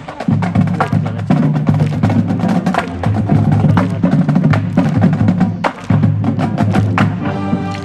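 High school marching band playing live: sustained band notes with frequent sharp percussion strikes.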